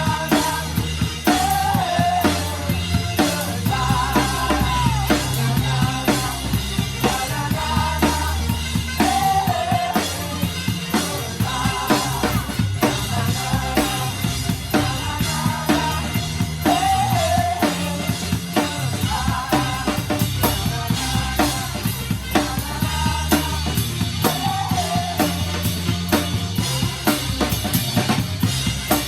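Drum kit played in a steady groove, kick and snare up close, under a live band with a bass line and a melodic part.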